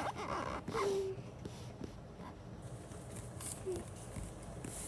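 Quiet pause with faint rustling of paper as fingers move over a comic book's pages, and a brief low hum of voice about a second in.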